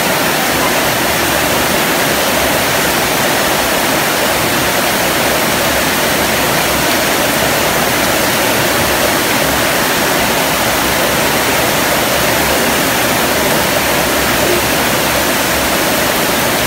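Heavy rain falling steadily on rooftops and trees: a loud, even hiss with no let-up.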